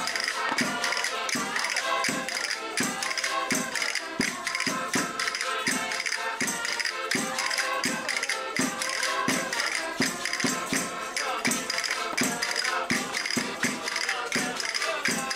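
Lively folk dance music on accordion with a jingling tambourine, keeping a steady beat of about two a second; it breaks off abruptly near the end.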